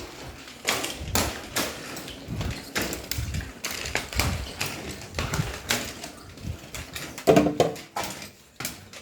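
Irregular knocks and clatter, several a second, in a small room.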